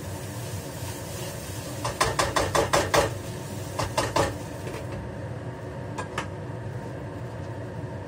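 Metal spatula knocking and scraping against a frying pan of fried rice: a quick run of about six or seven strikes, three more a second later, then two light clinks. A steady hiss underneath drops away about five seconds in.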